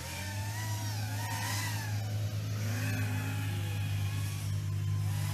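Racing quadcopters' electric motors and propellers whining, their pitch rising and falling with throttle as they fly the course, over a steady low drone.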